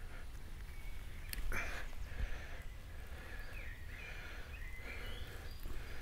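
Quiet woodland ambience with a few faint, short bird chirps and a brief rustle about one and a half seconds in.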